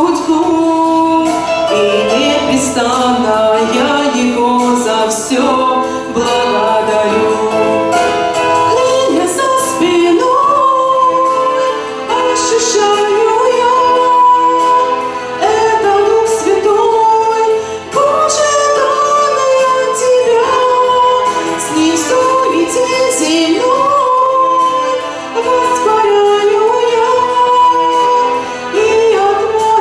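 A woman's voice singing a Russian church song in long, sustained notes.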